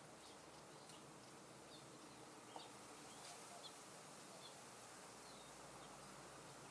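Faint, scattered bird chirps: short high notes every second or so over a steady soft hiss of wind.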